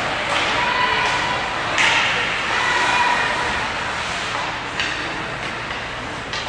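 Rink noise of an ice hockey game: a steady wash of sound from the ice and the arena, broken by sudden knocks and scrapes of sticks, puck and skates, sharpest about two seconds in and near five seconds, with faint voices behind.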